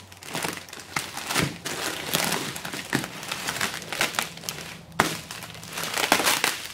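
Plastic wrap and bubble wrap crinkling and rustling as a wrapped model-airplane fuselage is handled and lifted out of a cardboard box, with a sharp click about five seconds in.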